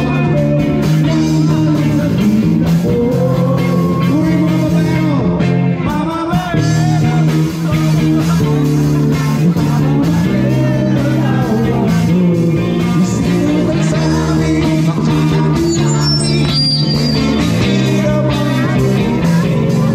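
A man singing a Filipino love song live over steady instrumental accompaniment.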